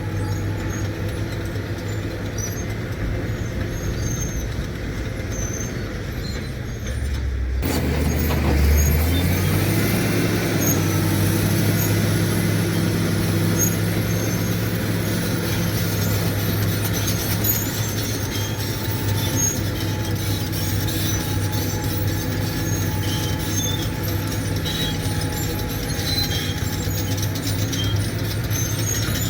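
Caterpillar D7 bulldozer's diesel engine running steadily. About seven seconds in it grows louder and brighter, its note dipping briefly before settling again.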